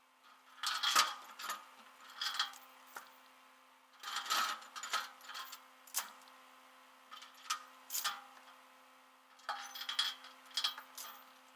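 About six bursts of light metallic clinking and rattling, over a faint steady hum.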